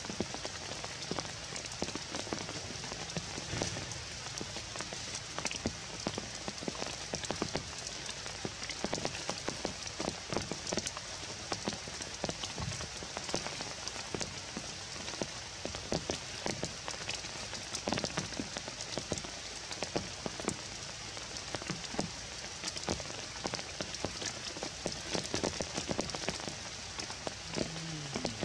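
Steady rain falling on forest foliage, with a dense scatter of individual drop hits.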